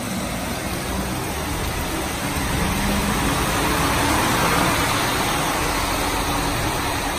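Steady rain on a street, with an articulated lorry driving past on the wet road: its engine and tyre hiss swell in the middle and fade toward the end.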